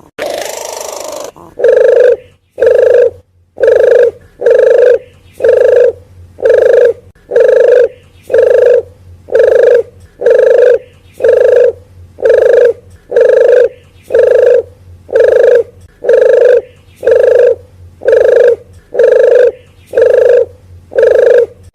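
Recorded lure call of the puter geni dove: a single low hooting coo repeated at an even pace, about one note a second, played loud and looped to draw wild doves in.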